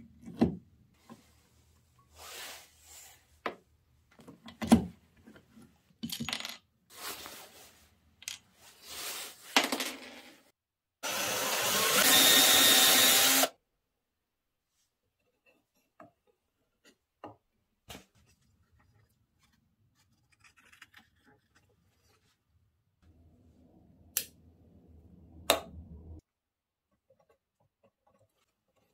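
Workshop handling sounds: a string of knocks, clicks and scrapes from tools and wood, then a small power tool running steadily for about two and a half seconds. After it come a few sparse clicks.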